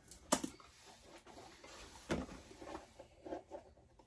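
Faint handling sounds from a wristwatch being picked over: a sharp click about a third of a second in and another about two seconds in, with lighter taps and rustling between.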